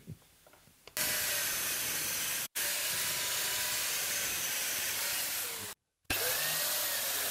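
Biscuit jointer (plate joiner) running at full speed while cutting biscuit slots in wood. It starts about a second in as a steady, loud motor noise, and the sound breaks off abruptly twice into brief dead silence.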